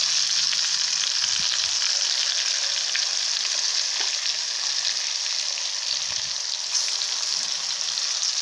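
Pieces of murrel fish frying in a pan of hot oil: a steady sizzle with scattered small crackles.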